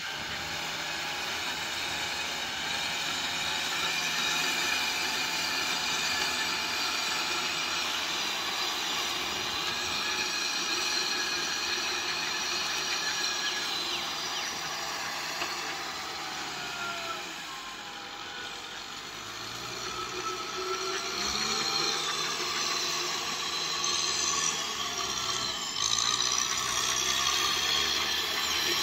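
Kubota M6040SU tractor's diesel engine running steadily under load while driving a rotary tiller through wet paddy mud. It eases off briefly about two-thirds of the way through, then picks up again.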